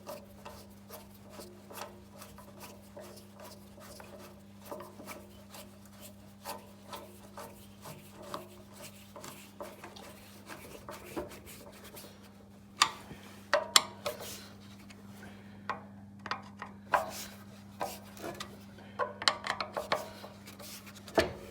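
Screws being driven by hand into a chop saw's plastic motor housing: the rubbing, scraping turns of the screwdriver with small clicks, then sharper knocks and taps of tool and parts from about halfway on. A steady low hum runs underneath.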